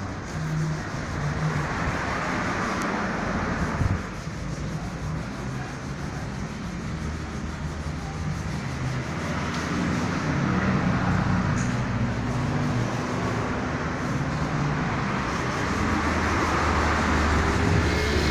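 Volkswagen hatchback's engine idling steadily with a low hum, a little louder near the end.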